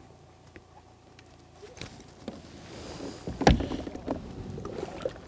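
Water lapping against a plastic fishing kayak's hull, with scattered small clicks and one louder knock about three and a half seconds in.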